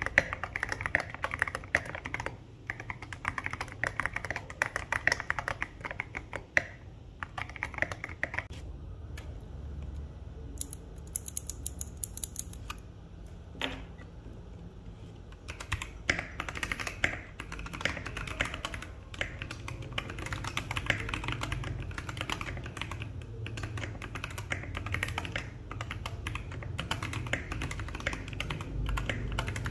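Typing on a Fanoe mechanical keyboard fitted with Kailh Polia tactile switches: rapid clacking keystrokes that thin out to scattered presses for several seconds near the middle, then pick up again.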